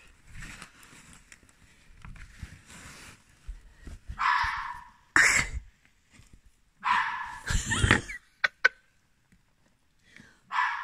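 Red fox barking at night: a series of harsh barks spaced a second or more apart, with a loud one about five seconds in and another near the end. Two short clicks come just after the middle.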